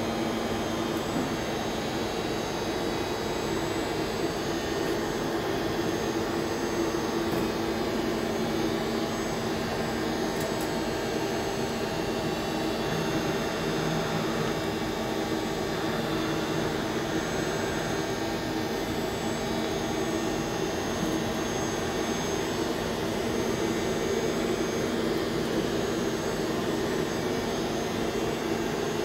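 Boehringer DUS 630 ti cycle lathe running: a steady machine hum with a few constant low tones over an even noise, unchanging throughout.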